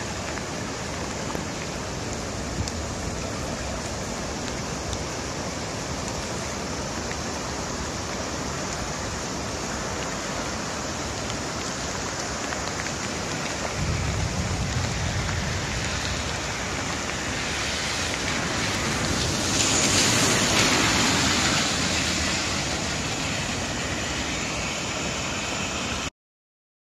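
Heavy rain pouring down in a steady hiss. It grows louder for a few seconds about two-thirds of the way through and cuts off suddenly near the end.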